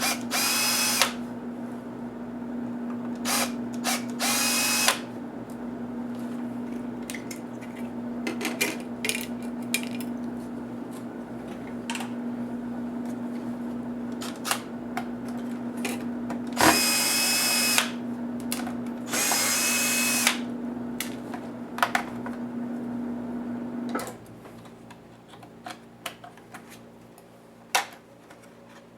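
Small electric screwdriver whirring in short spurts, five in all, as it drives out the laptop's case screws. Light clicks and taps of screws and parts being handled come in between, over a steady low hum that stops near the end.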